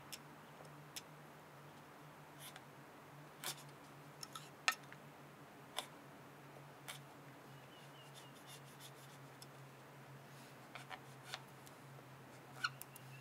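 Small knife carving the notch of a fresh bark whistle: faint, irregular sharp clicks and snicks as the blade bites into the soft green wood and knocks the board beneath.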